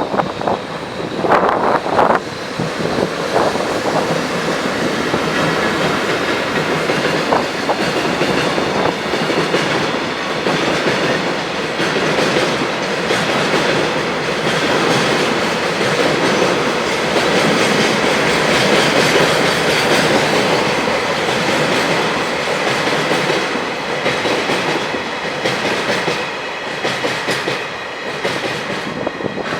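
Freight train passing close by: a long continuous rumble of wagons with wheels clicking over rail joints, sharpest in the first couple of seconds. Faint steady tones run through it, typical of a level-crossing warning bell ringing while the train goes by.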